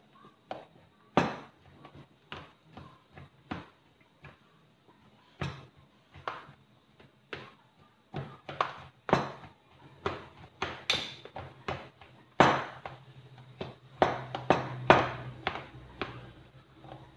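Metal spoons and a fork knocking and scraping against a plastic tub as cooked purple sweet potato (camote) is mashed: irregular clicks and taps, with a few louder knocks about a second in and in the last few seconds.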